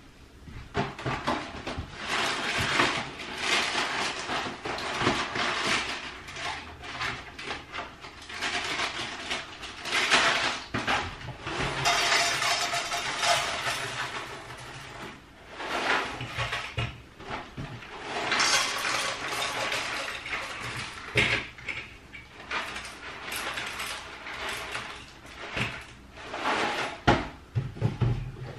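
Dry cereal being poured and handled at a kitchen counter: cereal rattling into metal dog bowls, packaging rustling, and bowls clinking, in uneven bursts.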